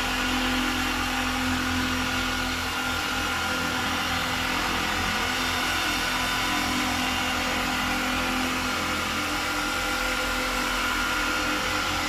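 Electric machine polisher running at a steady speed with a soft black finishing pad and fine finishing compound worked across car paint: the last finishing stage, taking out fine marring. A constant motor hum with a steady whine over it.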